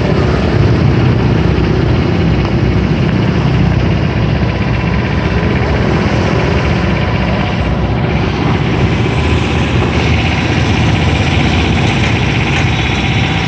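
Iseki Frontier 110 mini combine harvester's engine running steadily.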